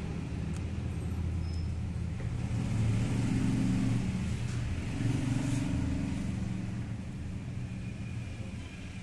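Low rumble of a motor vehicle engine running in the background, swelling in the middle and easing off toward the end.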